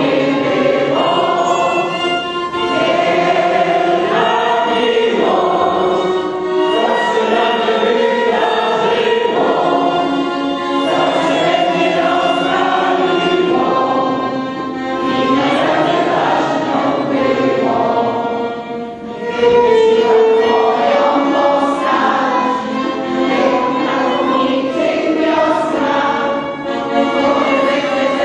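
Mixed choir of women and men singing a song together, with a brief drop in level about two thirds through before a louder phrase.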